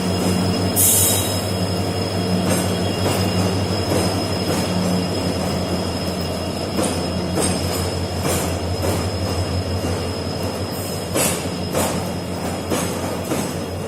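A freight train behind a WDG4 diesel locomotive running past. It gives a steady low rumble and a thin, steady high squeal, with repeated knocks of the wheels clattering along the rails.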